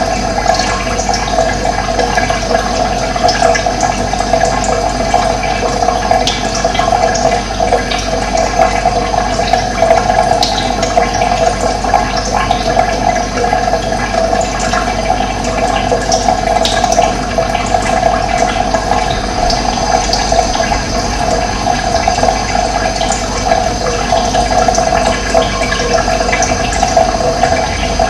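Running water flowing steadily, a continuous rushing with scattered faint short high-pitched sounds over it.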